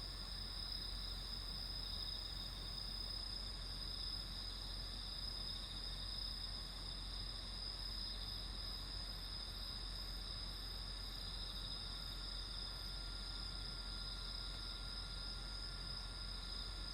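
Steady chorus of night-singing insects such as crickets: a continuous high-pitched ringing that neither rises nor fades.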